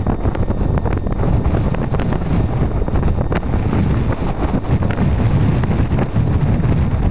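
Wind buffeting the camera microphone: a loud, gusty low rumble with crackle.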